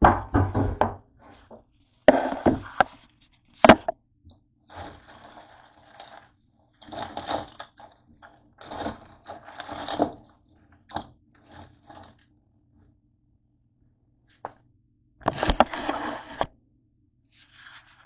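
Handling noises on a countertop: a bowl of crackers and snacks being moved and set down, with scrapes, rustles and a few sharp knocks in irregular bursts.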